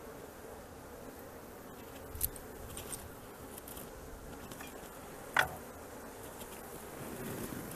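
A colony of honey bees buzzing in a steady hum, with two sharp knocks, one about two seconds in and a louder one a little past the middle.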